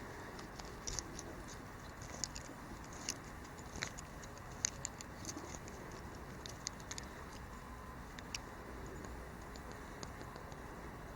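Victorinox Swiss Champ awl being twisted into a small wooden log to bore a hole: irregular small scratchy clicks of the blade scraping wood, thicker in the first half and sparser toward the end.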